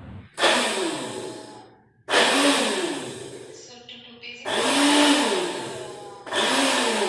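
Glen i Blender portable blender's 250-watt motor run in four short pulses about two seconds apart. Each pulse starts abruptly, its pitch rising and then falling away as the motor spins down.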